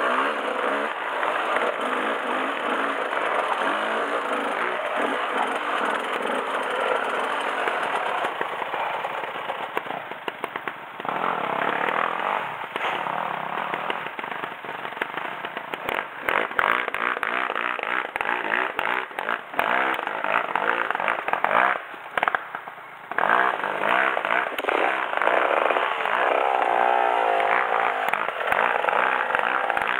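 KTM off-road motorcycle engine running at low trail speed, revving up and down in short bursts. From about halfway through there are many sharp knocks and rattles, and the engine drops away briefly a little past two-thirds through.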